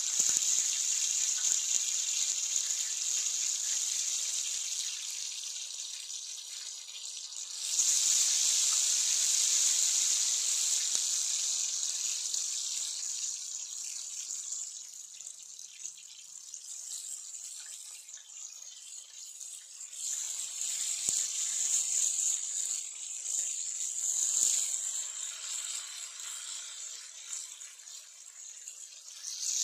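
Marinated lake-fish steaks sizzling as they are laid one by one into hot oil in a large iron kadai, deep-frying. The hiss flares up at the start and again about eight seconds in as more pieces go in, dies down, and swells again a little past the middle.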